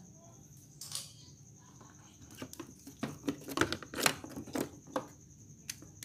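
Hand tools scraping and clicking against the glued plastic casing of a washing-machine control module, as a hole is made to reach the board: one scrape about a second in, then a quick irregular run of sharp scrapes and taps through the middle, over a faint steady high whine.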